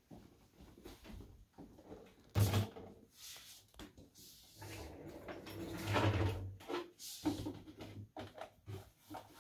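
Care supplies in a plastic basin being set down and handled on a bedside table: a sharp knock about two and a half seconds in, then a few seconds of rustling and light clattering as items are laid out.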